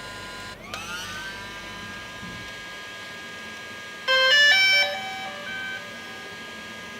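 Electronic background music: sustained synth tones that swell in just after the start, with a quick run of high beeping notes about four seconds in.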